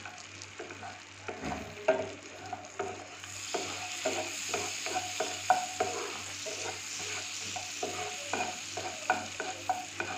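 Garlic cloves sizzling in melted butter in a non-stick pan, with a wooden spatula knocking and scraping against the pan as they are stirred. The sizzle gets louder and brighter about three seconds in.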